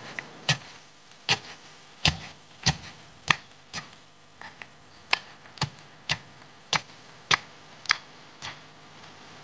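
Chef's knife slicing chillies on a wooden cutting board: a steady run of sharp knife taps against the board, under two a second, stopping near the end.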